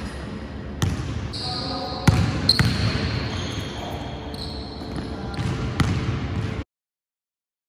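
Basketball bouncing on a hardwood gym floor with sharp knocks, and sneakers squeaking high between the bounces, echoing in a large hall. The sound cuts off suddenly near the end.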